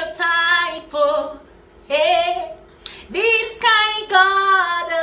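A woman singing a gospel praise chorus unaccompanied, in held phrases of about a second each with short breaths between them.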